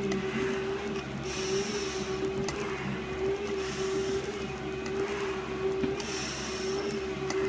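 Steady, heavy breathing through a full-face respirator mask, a short hiss about every two seconds, over a constant wavering machine hum.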